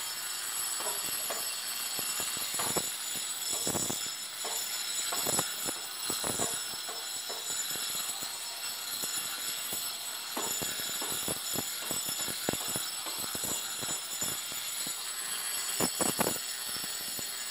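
Hand-held electric angle grinder fitted with a diamond disc, running against a concrete wall to grind down a formwork joint. The motor gives a steady high whine, and the disc rasps on the concrete in uneven grating strokes as it is pressed and moved.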